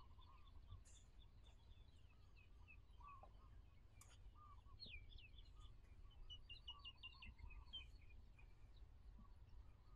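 Faint birdsong: several runs of quick, high repeated chirps and a few lower whistled calls, over a low steady rumble.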